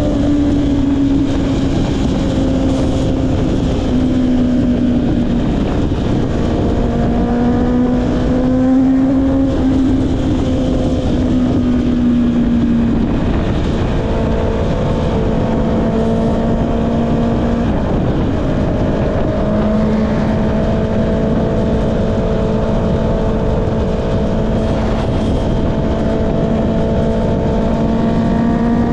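Honda CB650R inline-four engine running through an Akrapovic exhaust at steady cruising revs. The note holds fairly even, easing down in pitch and briefly breaking and stepping a few times along the way.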